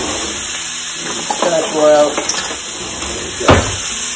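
Sliced peppers and onions sizzling steadily in hot oil in a stainless-steel sauté pan as they are stirred. A single sharp clack of the stirring utensil against the pan comes about three and a half seconds in.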